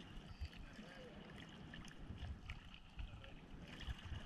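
Sea water lapping and splashing against a surfboard floating on small waves, over a low, uneven rumble.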